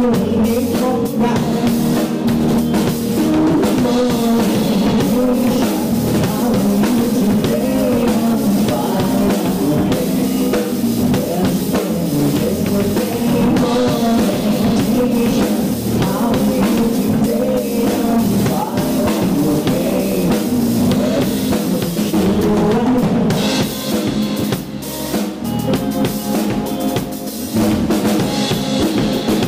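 Live rock band playing: a Tama drum kit with kick, snare and rimshots driving the beat under bass guitar and electric guitars. The music eases off a little for a few seconds near the end.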